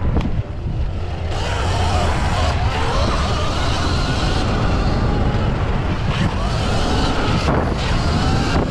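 Heavy wind buffeting on the microphone of a stock Sur Ron X electric dirt bike at racing speed, with the electric motor's whine rising and falling in pitch as the throttle is rolled on and off. A couple of brief knocks come through, one just after the start and another near the end.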